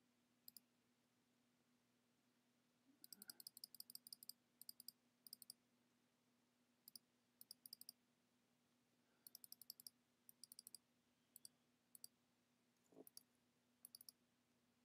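Faint computer mouse clicks coming in quick runs of several at a time, with pauses between, over a faint steady hum.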